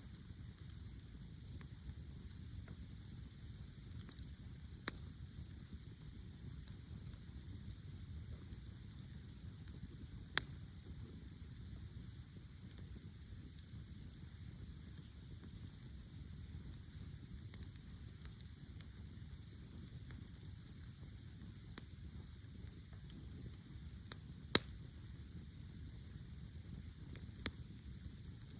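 Steady high chirring chorus of night crickets, with a few sharp pops and crackles from a campfire, the loudest about two thirds of the way through.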